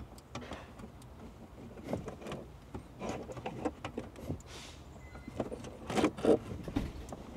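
Plastic wiring-harness connectors and cables being handled and plugged in behind a car radio: scattered small clicks and rustles, with a few louder clacks about six seconds in.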